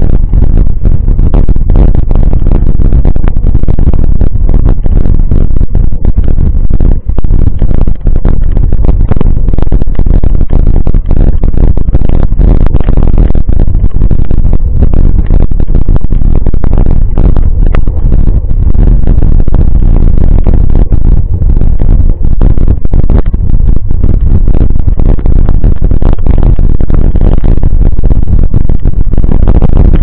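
Mountain bike riding over a rough dirt road, heard through a camera mounted on the bike: a loud, constant low rumble full of rattles and knocks.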